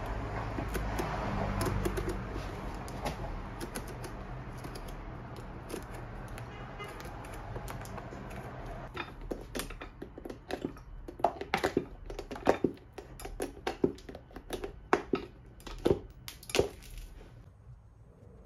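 Pincers gripping and pulling tacks out of a leather boot's heel seat, with sharp metal clicks and snaps that come thick and fast in the second half. A steady low hum runs underneath early on.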